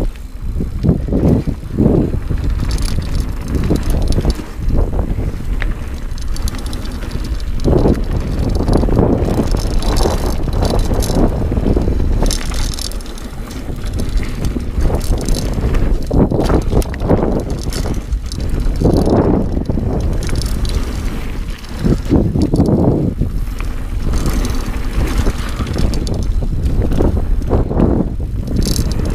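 Dartmoor Primal hardtail 29er mountain bike ridden over a dirt forest trail: a continuous, uneven rumble of tyres on the ground with wind buffeting the camera's microphone, broken by frequent rattles and knocks as the bike goes over bumps.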